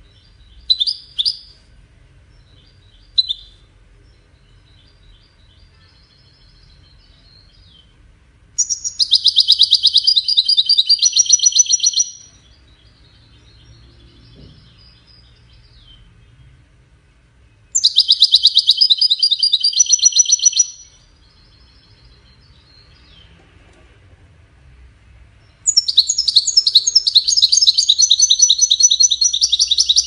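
European goldfinch singing: a few short chirps near the start, then three loud runs of fast, twittering trills, each about three seconds long, with soft twittering between them.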